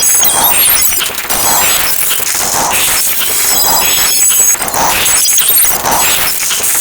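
A loud, dense jumble of many sound effects layered on top of each other, with crashing, high tones and a pulse that repeats about twice a second.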